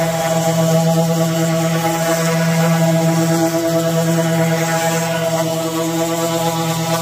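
Ridgid orbital sander running steadily with its round pad sanding across a wooden tabletop: a constant, even-pitched motor hum with the hiss of sandpaper on wood.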